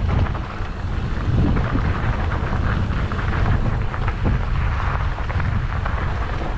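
Mountain bike clattering and rattling over a rough, rocky dirt singletrack on a fast descent, with heavy wind buffeting the camera microphone as a steady low rumble.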